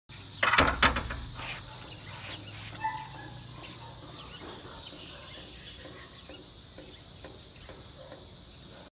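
A few sharp clatters about half a second in, then a steady high-pitched hiss of outdoor insects and birds with scattered light clicks.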